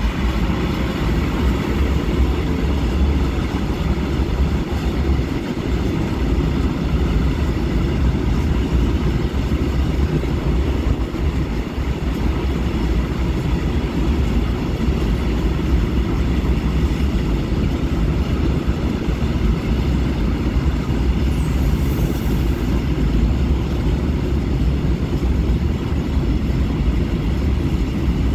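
A train of empty open freight wagons rolling past, hauled by a Newag Dragon2 electric locomotive: a steady low rumble of wheels on rail.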